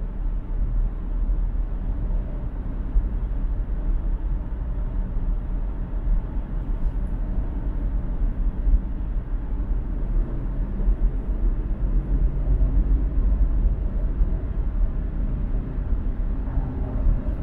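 A car driving at highway speed: a steady, deep rumble of road and tyre noise with engine noise, unbroken throughout.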